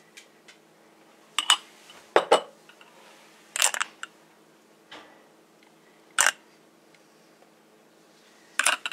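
A spoon clinking and tapping against glass mugs and a glass jar while fruit puree is spooned onto cake, about five separate sharp clinks a second or two apart.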